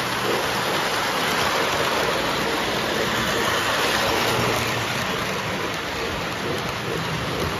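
Lionel O-gauge model steam train with freight cars running close by on three-rail track: a steady rushing rumble of metal wheels rolling on the rails, with a faint repeating beat.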